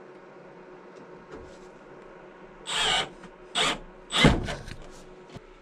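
Cordless drill driving a truss head screw into aluminum wall cladding in three short bursts, the last one the loudest.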